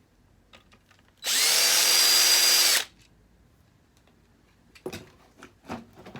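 Power drill-driver running once for about a second and a half, backing out a screw, followed by a few light clicks.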